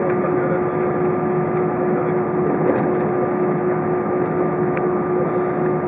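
Cabin noise of an Airbus A320 taxiing, its jet engines running at idle: a steady hum with a few fixed tones over it and a couple of faint knocks.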